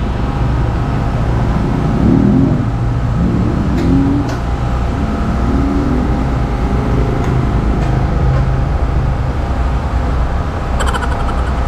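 Suzuki Burgman Street EX 125 scooter's single-cylinder four-stroke engine idling steadily, with a short rattle near the end.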